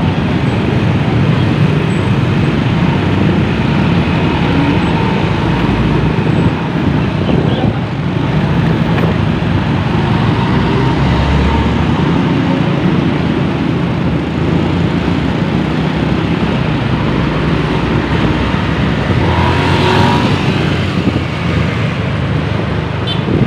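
A motorbike riding through busy street traffic: steady engine and road noise from the bike and from the motorbikes and trucks around it.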